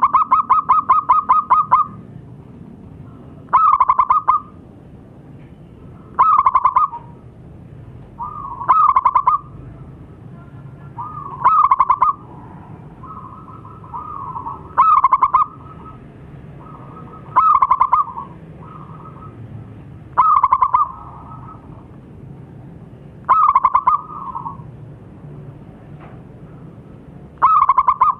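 Zebra dove (perkutut) cooing: a series of short, rapid-pulsed cooing phrases repeated about every two and a half to three seconds. The first phrase is a longer stuttering run, and some later phrases trail off into softer notes.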